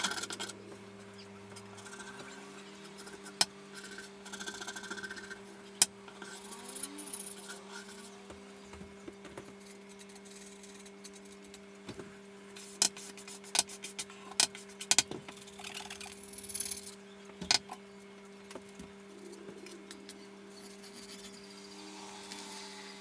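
Nylon scraper scraping softened varnish and paint stripper off a wooden rifle stock in short, irregular strokes, with sharp clicks and taps here and there, over a steady low hum.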